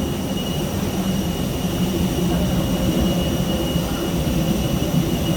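A steady jet-turbine whine over a low, continuous rumble from a parked airliner.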